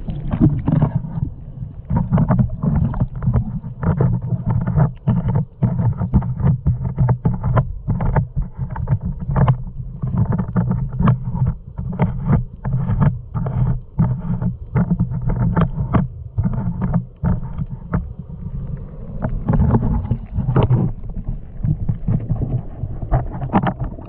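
Plastic fishing kayak being paddled: a steady low rumble of water against the hull with quick splashes and knocks, several a second.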